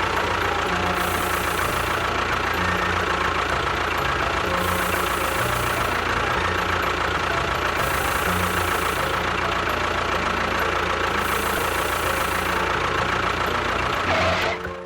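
An engine running steadily at an even speed, then cutting off suddenly near the end.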